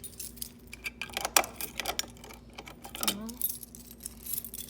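A bunch of keys on a ring jangling and clinking in irregular bursts as they are sorted through to find the right one.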